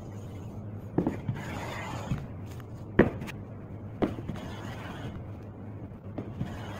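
Hand woodworking: scraping strokes of a hand tool on wood, broken by a few sharp knocks about a second or two apart, the loudest near the middle.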